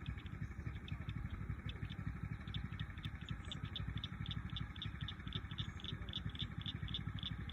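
Pond-side nature sounds: a high chirp repeating evenly about four times a second, over a steady hiss and a low fluttering rumble.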